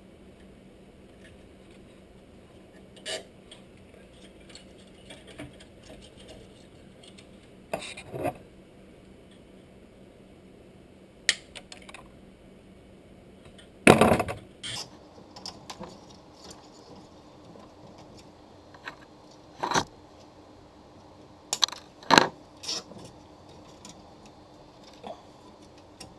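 Hands working cable ties and a small computer case fan against the case: scattered clicks, taps and light rattles of hard plastic and metal at irregular intervals, with the loudest knock about halfway through.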